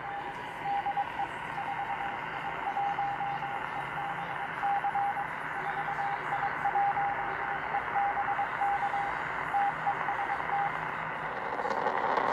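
A radio receiver hissing with static while a single steady tone keys on and off in short and long pieces, like a Morse code signal, stopping near the end.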